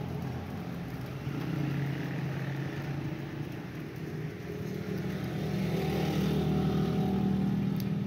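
An engine running steadily with a low hum that grows louder about five seconds in.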